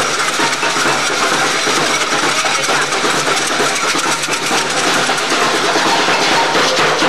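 Samba percussion band playing a loud, dense, continuous rattling rhythm of drums and shakers.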